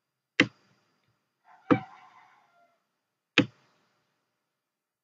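Three sharp computer mouse clicks, roughly a second and a half apart, the second followed by a brief faint hum.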